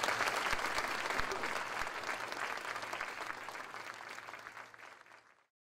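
Audience applauding, fading away and stopping about five seconds in.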